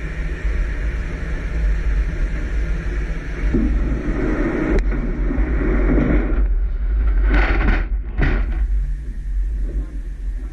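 Steady low rumble of an icebreaker's engines, with a few short, louder noisy bursts in the second half.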